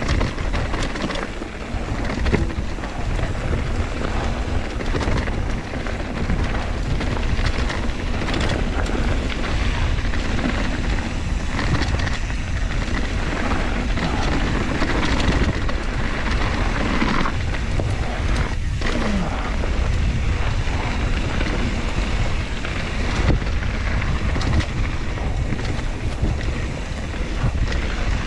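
Mountain bike descending a rocky dirt singletrack: wind buffeting the microphone and tyres rolling on dirt, with frequent small knocks and rattles as the bike goes over rocks.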